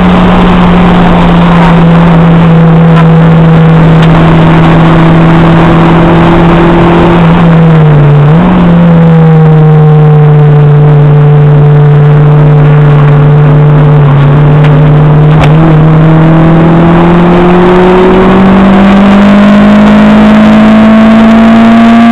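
Acura RSX Type-S's K20A2 2.0-litre four-cylinder engine heard from inside the cabin on track, running hard at steady revs under heavy road and wind noise. The engine note dips briefly and comes straight back about eight seconds in, then rises steadily over the last few seconds as the car accelerates.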